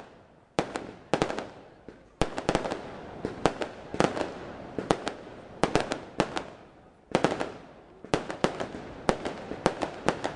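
Aerial fireworks display: shells bursting in a rapid, irregular string of sharp bangs, several a second, each trailing off in a short echo.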